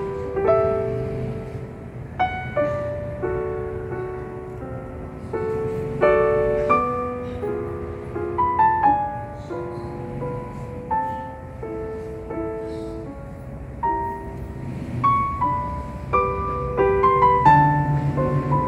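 Background piano music: a slow melody of struck single notes and chords, each ringing and fading.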